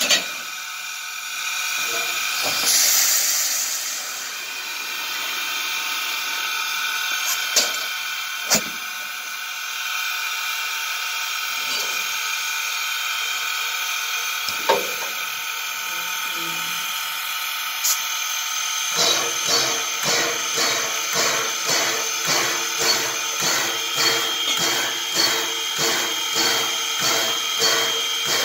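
Steam locomotive (a 1910 2-6-0 Mogul) standing under steam, with a steady hiss and a few sharp metallic clanks. About two-thirds of the way in, a slow, even beat of about one and a half a second starts up and keeps going.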